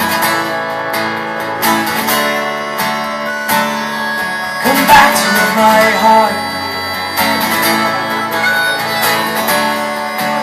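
Acoustic guitar strummed in a steady rhythm, with a harmonica playing a melody over it and no singing.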